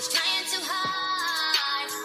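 Pop song playing: a sung vocal line over a beat with deep kick drums about once a second.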